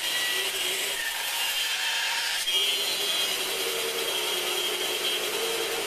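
Bandsaw ripping a cherry board along the fence; about two and a half seconds in the cut ends and the saw runs on without load.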